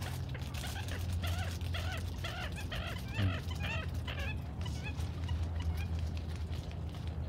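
An animal giving a rapid run of short, high, yelping calls, about three a second, that fade out past the middle, over a steady low hum.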